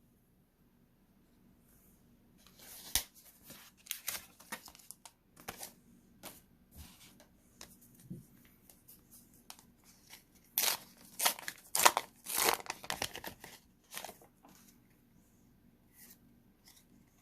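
A McDonald's 25th Anniversary Pokémon card pack's wrapper being torn open and crinkled by hand, a run of short crackles and rips that is loudest partway through.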